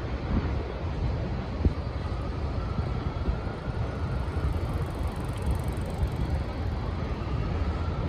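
Steady rumble of city street traffic, with a faint hum that swells and fades.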